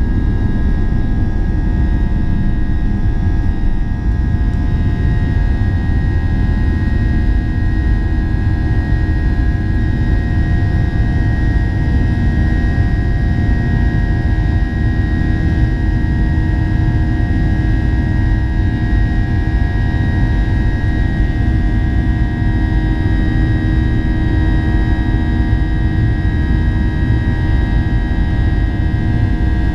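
Jet engines of a Boeing 737-800 (CFM56-7B turbofans) running steadily, heard inside the passenger cabin: a steady low rumble with several whining tones held at a constant pitch.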